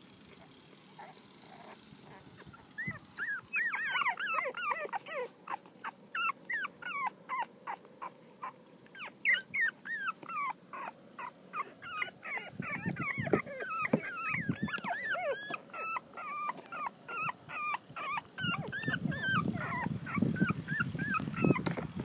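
Two-week-old Boston Terrier puppies whimpering and squeaking: a rapid run of short, high, wavering cries that starts about three seconds in and keeps going. Bouts of low muffled rumbling sit beneath the cries in the second half.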